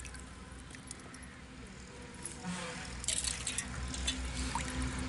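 Hands washing raw chicken pieces in a steel bowl of water: water sloshing and dripping back into the bowl, with a cluster of splashes about three seconds in, over a low steady rumble.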